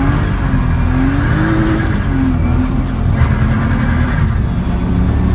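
BMW E36 325's M50B25 straight-six engine revving up and down under hard drifting, its pitch rising and falling several times, with tyres squealing. Music plays underneath.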